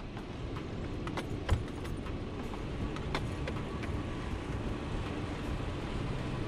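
Car driving along a dirt track: a steady low rumble of engine and tyres, with a few sharp knocks or rattles as it goes over bumps.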